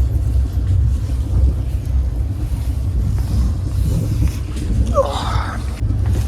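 Steady low rumble of a moving passenger train heard from inside an air-conditioned coach, with a short rising squeak about five seconds in.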